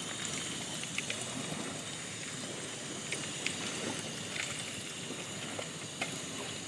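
Steady hiss of a gas burner on a cylinder stove heating a steel pot, with a few light clicks scattered through it.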